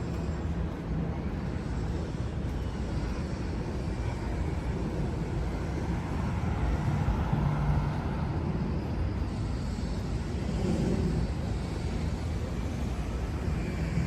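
City street traffic: a steady hum of vehicles, swelling for a few seconds around the middle.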